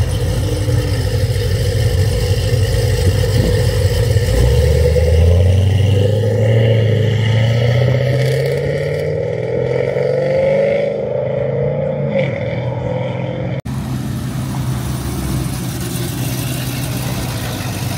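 Car engines running. One engine's note rises steadily over about four seconds and then holds high. After a brief dropout about three-quarters of the way through, a steady low engine rumble continues.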